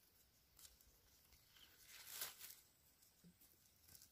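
Near silence, broken by one brief, faint rustle about two seconds in and a few tiny ticks.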